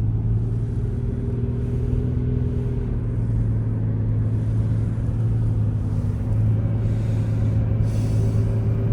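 Motor vehicle running with a steady low drone and even rumble.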